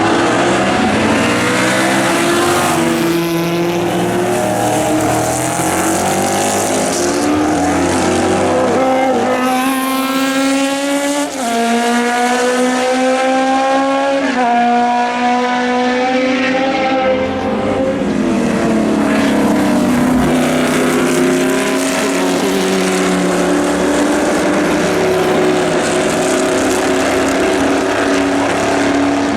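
Historic Formula 5000 and Formula 2 racing cars at full throttle, several engine notes overlapping. The notes climb in pitch and drop sharply at upshifts, twice near the middle.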